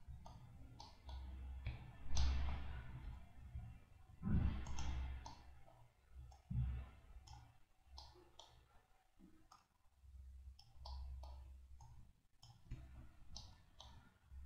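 Scattered computer mouse and keyboard clicks over a low background hum, with two louder soft swells of noise about two and four seconds in.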